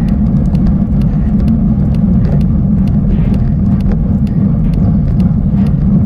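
Bicycle riding over a rough, broken track: a loud, steady low rumble with many sharp rattles and clicks, several a second, as the bike jolts over the uneven surface.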